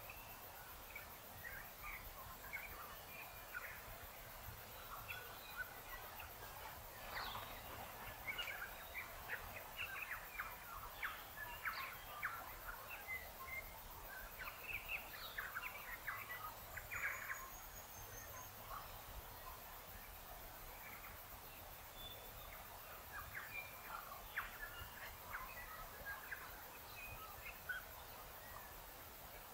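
Birds singing and calling: a scatter of short chirps and notes, thickest around the middle and again near the end, over a faint steady hiss.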